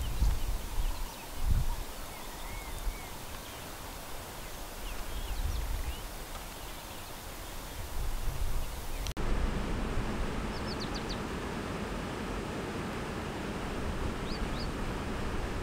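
Outdoor bush ambience: low thumps of wind or handling on the microphone, with short bird chirps. About nine seconds in the sound cuts to a steady hiss with brief high bird calls.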